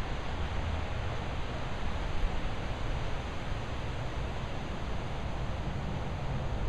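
Steady outdoor background noise: a low rumble with a hiss over it, with no clear animal calls.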